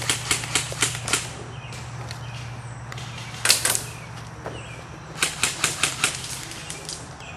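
Airsoft guns firing in quick strings of sharp cracks, about four shots a second: a string at the start, two loud shots in the middle and another string a little later, over a steady low hum.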